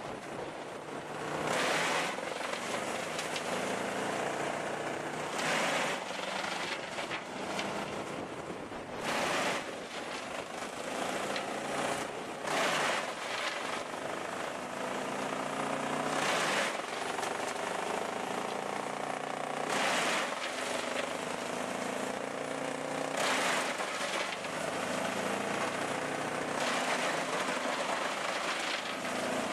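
Heavy machinery running: a steady engine hum, with a loud rushing burst repeating about every three to four seconds.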